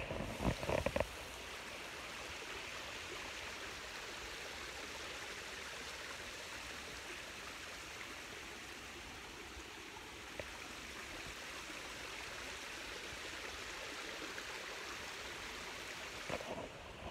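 Steady rushing and splashing of a garden water feature, water cascading over rocks into a pond. A few brief bumps near the start.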